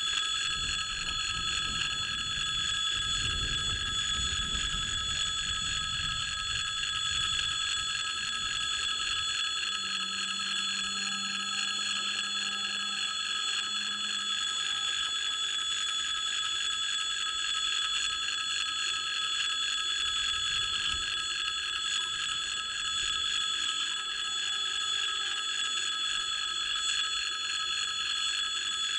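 Electric warning bell of a Russian level crossing ringing continuously and evenly, signalling that a train is approaching.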